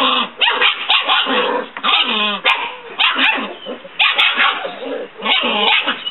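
Five-week-old German Shepherd puppies barking and yipping, many short high barks in quick succession.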